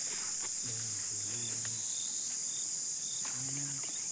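Steady high-pitched drone of insects, with short high chirps repeating about every half-second. A faint low voice murmurs twice, about a second in and again near the end.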